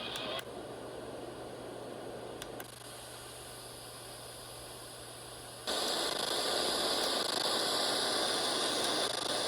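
Radio static hissing from a ZHIWHIS portable radio's speaker between stations; the hiss jumps in level in steps, dropping about half a second in and again near two and a half seconds, then rising sharply about five and a half seconds in, as the tuning moves, with a few faint clicks.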